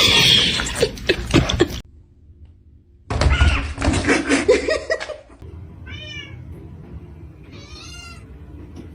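A cat meowing twice, two short calls that rise and fall in pitch about two seconds apart, after louder stretches of noise with knocks.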